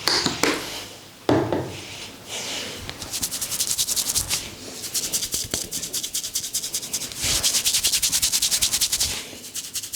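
Hands rubbing rapidly back and forth through a person's hair and scalp during a head massage: a fast, even, scratchy rubbing of about nine to ten strokes a second, after a few slower single strokes at the start.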